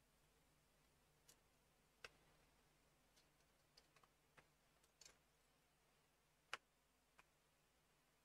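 Faint, scattered clicks of small plastic LEGO pieces being picked up and handled, about eight irregular ticks in otherwise near silence; the sharpest come about two seconds in and about six and a half seconds in.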